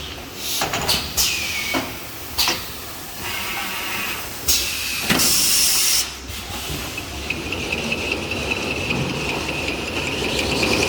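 Paper rewinding machine running with a steady mechanical drone, several sharp clacks in the first few seconds and a burst of hiss about five seconds in.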